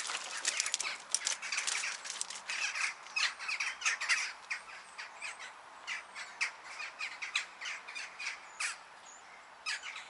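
A flock of crows calling, many short calls overlapping, busiest in the first few seconds and thinning out after about five seconds.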